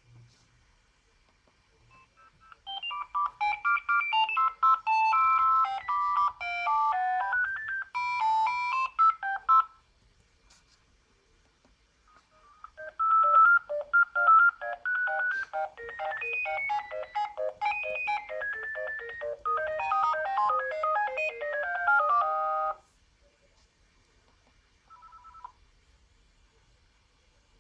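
Sagem my101X mobile phone playing two ringtone melodies one after the other through its small loudspeaker, a short pause between them, then a brief beep near the end.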